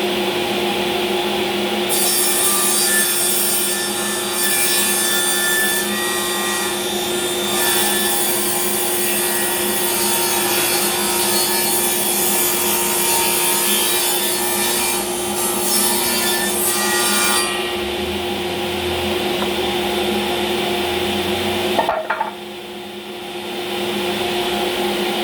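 Power saw running steadily and cutting through wood for about fifteen seconds, then running on with the cutting noise gone; the sound dips briefly near the end.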